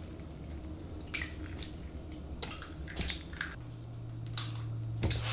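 Eggs being cracked by hand over a glass bowl of flour: a few soft shell cracks and taps, with egg dripping into the bowl. A low steady hum comes in a little over halfway through.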